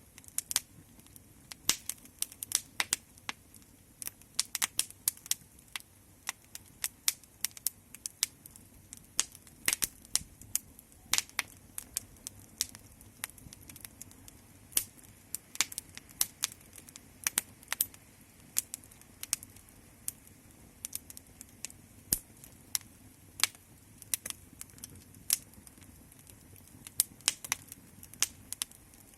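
Wood fire crackling, with irregular sharp pops and snaps over a low steady hiss of flame.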